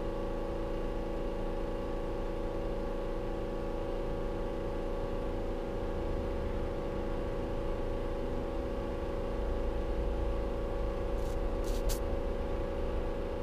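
Atwood Hydroflame 8520 RV furnace running on a test fire after its igniter was replaced, its blower motor giving a steady hum. A deeper rumble grows a little louder in the second half.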